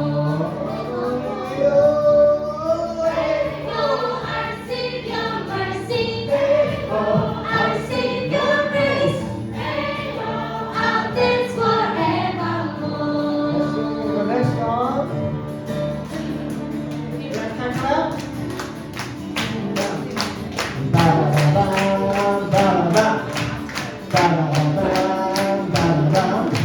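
A group of voices singing a worship song together, with a steady beat of hand claps, about two a second, joining in during the last third.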